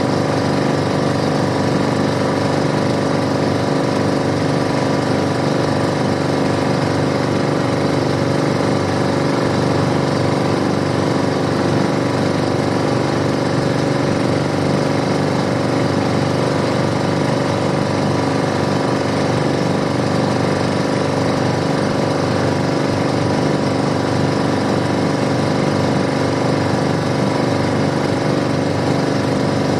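Boat engine running steadily at constant speed, a loud, even, rattling drone.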